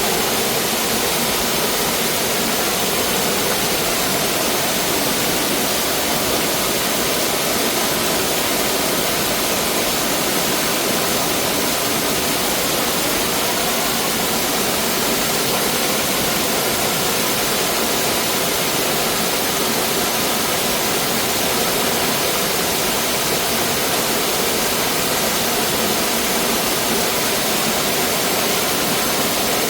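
Mountain stream water rushing and splashing over rocks, a steady, unbroken roar.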